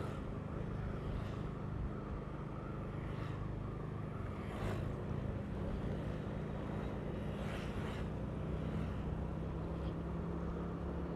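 Steady engine and road hum from the vehicle being driven along a road, with a few faint swishes that come and go.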